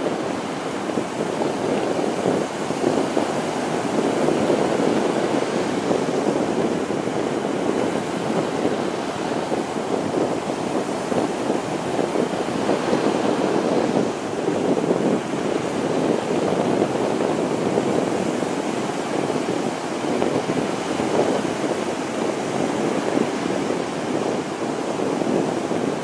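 Small waves breaking and washing onto a sandy beach in a steady rush of surf that swells and eases every few seconds, with wind on the microphone.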